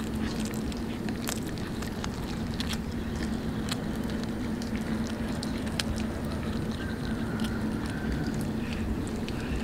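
Kitten chewing raw tuna fish, small clicks and crunches scattered through, over a steady low hum.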